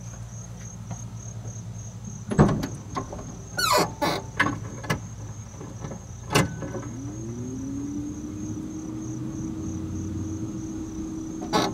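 A few sharp knocks and clunks, then about seven seconds in an electric windshield-washer pump on a 1985 Dodge Ram W150 starts with a whine that rises briefly and then runs at a steady pitch. It is pumping fluid to a passenger-side washer nozzle that is cracked and spraying out to the left.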